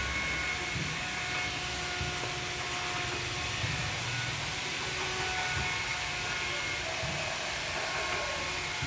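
A power tool running steadily with a continuous even whirr, as in carving.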